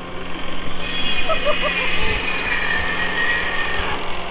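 Vehicle traffic noise with a high-pitched squeal that starts suddenly about a second in and lasts about three seconds.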